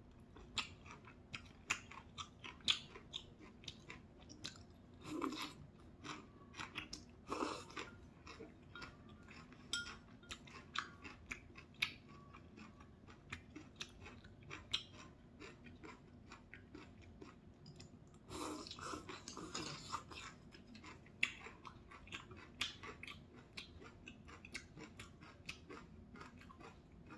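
Close-up eating sounds of a person eating udon noodles: steady wet chewing with many small mouth clicks, broken by several slurps of noodles and broth, the longest lasting about two seconds a little past the middle.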